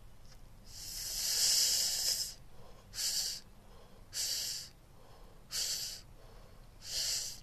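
A man's breathing close to the microphone while smoking: one long drag about a second in, then four shorter breaths roughly a second and a quarter apart.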